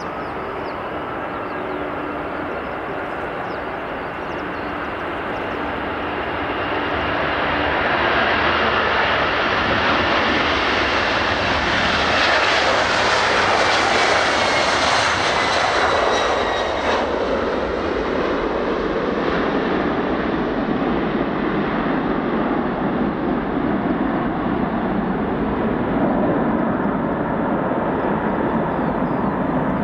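Boeing 767-300 jet airliner taking off, its twin turbofan engines at takeoff thrust. The engine noise builds as it rolls down the runway and lifts off, with a falling whine about midway as it passes, then turns to a lower rumble as it climbs away.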